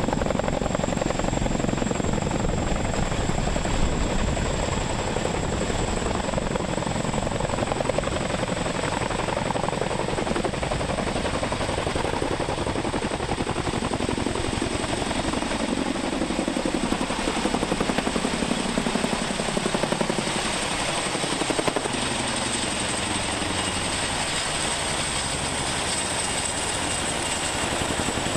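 Boeing CH-47 Chinook tandem-rotor helicopter hovering close by, its rotors beating rapidly over a steady high turbine whine, under load while dipping and lifting a water bucket. The lower rotor and engine tones glide in pitch about two-thirds of the way in.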